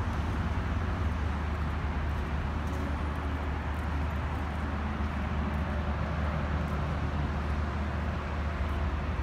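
Steady urban road-traffic noise, a continuous low rumble with hiss and no single event standing out.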